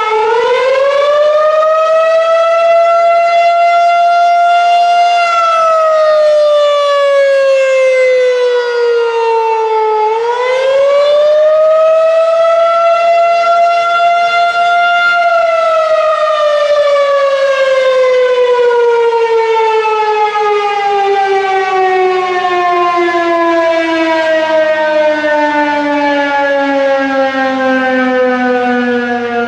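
Federal Signal 2001-SRN rotating electromechanical warning siren sounding the attack wail. Its pitch rises, holds and falls twice, then sinks in one long, slow fall through the second half as the siren winds down.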